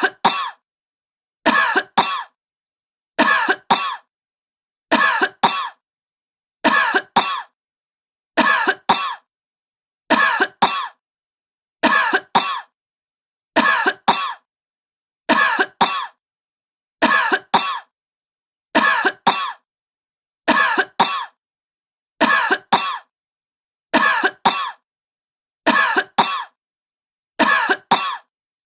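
A sick woman coughing in short double coughs, one pair about every second and three quarters, with silence between. The pairs repeat identically, as a looped recording.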